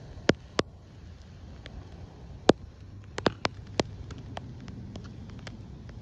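Mute swans dabbling at the water surface with their bills, making sharp, irregular clicks and small wet snaps: two near the start, a louder one about halfway, then a quick cluster of four. Under them runs a faint, steady low rumble.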